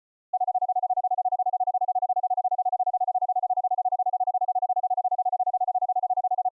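Keyed Morse code audio tone (AFCW) at about 700 Hz, sent as a fast, even string of dits. It is a clean single tone with no overtones, starting about a third of a second in.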